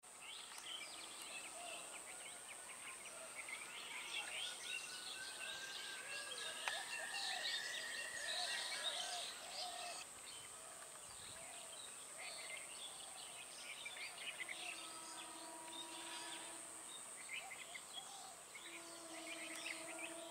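Birds chirping and calling over a faint, steady high hiss. In the second half, a faint held low tone sounds twice: once for about two seconds, and again from near the end.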